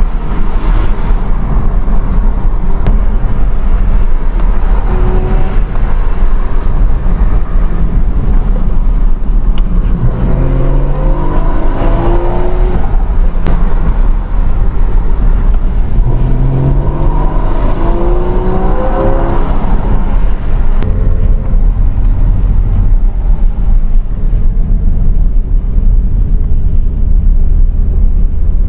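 Porsche Cayman's engine and tyre noise heard from inside the cabin while climbing a mountain road: a steady low drone, with the engine pitch rising twice as the car accelerates uphill.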